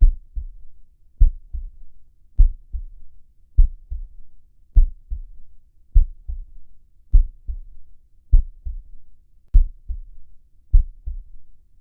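Heart sounds beating steadily at about fifty beats a minute, each beat a strong first sound followed by a softer second one, lub-dub.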